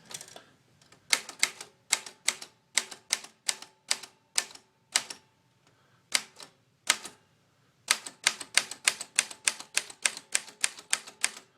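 1960 Royal Model FP manual typewriter being typed on, letter keys struck one after another to check that every letter prints. The sharp typebar strikes come irregularly at first, with a couple of short pauses, then in a quicker even run of about four a second near the end.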